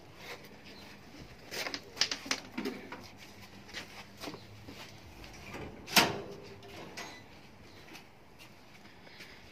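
Wire-mesh kennel door being handled: a few light clicks and knocks, then one sharp metallic clack with a short ring about six seconds in.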